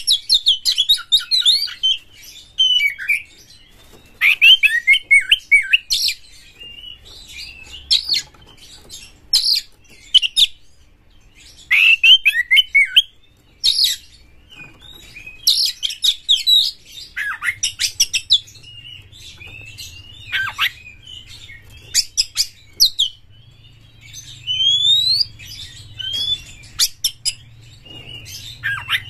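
Male Oriental magpie-robin (kacer) singing in bursts a second or two long with short pauses between, mixing rapid stuttering notes with sliding, rising whistles.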